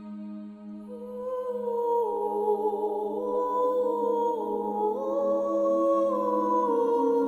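Background music: a steady low drone note, joined about a second in by a slow, hum-like melody of long held notes stepping up and down.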